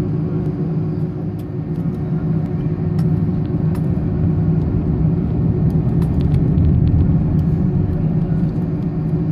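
Airbus A310 jet engines heard inside the cabin on the ground before takeoff: a steady low rumble with a constant hum and a few faint ticks.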